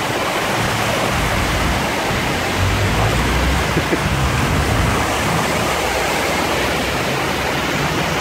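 Steady rushing and splashing of floodwater as cars drive through a flooded street, throwing up spray, with a car's low rumble passing by about three seconds in.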